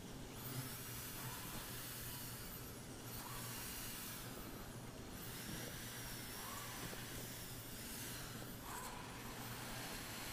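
Faint steady hiss with a low hum underneath; no drill motor or cutting sound stands out.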